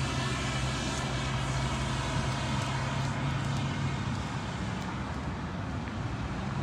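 Steady low hum of a motor vehicle's engine running close by, with many overtones, over the noise of road traffic.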